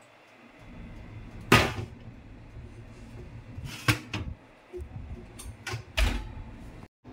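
Knocks and clanks of an oven being handled. The loudest comes about a second and a half in, a few lighter ones follow, and a heavy thump near the end comes as the oven door shuts.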